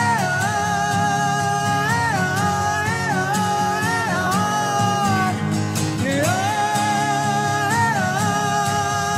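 Two men singing long held notes together over two strummed acoustic guitars. The voices break off about five seconds in and come back a second later while the strumming carries on.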